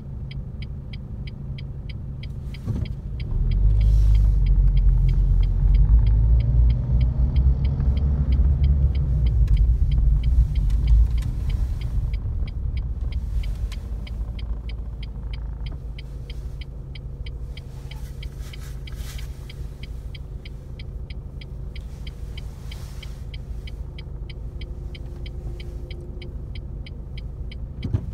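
Car driving through town, heard from inside the cabin: a low engine and road rumble that swells as the car pulls away about three seconds in, then settles to a steadier cruise. A regular light ticking runs throughout.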